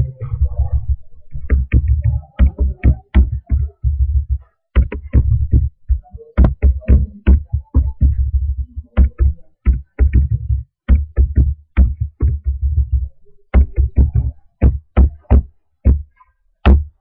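Computer keyboard typing in irregular runs of keystrokes, each a sharp click with a heavy low thud.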